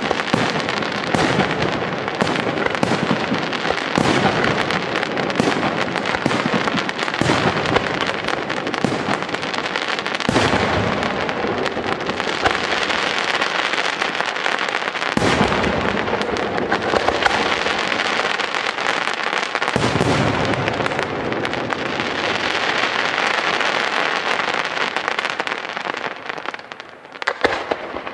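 Aerial firework shells bursting in a dense, continuous barrage of bangs and crackle. The barrage thins out about two seconds before the end, leaving a few last reports.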